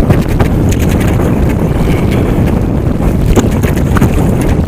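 Wind buffeting the microphone, a loud steady low rumble, with a few faint ticks scattered through it.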